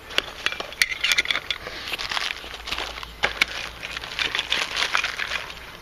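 Small clear plastic bag of coil hardware crinkling and rustling as it is handled and pushed into a zippered fabric compartment, with many small irregular clicks.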